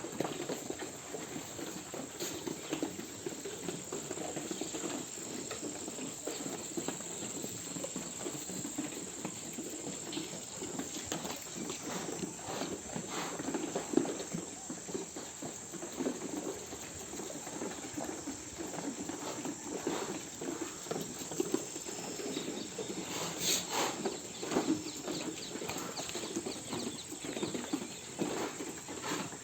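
Flock of sheep milling about, many small hooves pattering and shuffling continuously and unevenly.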